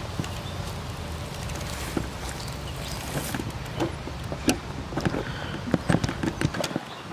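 Wind rumbling on the microphone of a moving bicycle, with a run of sharp clicks and knocks from about halfway in. The rumble drops away near the end.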